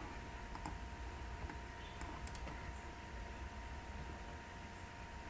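A few scattered, faint computer keyboard and mouse clicks, over a faint steady tone.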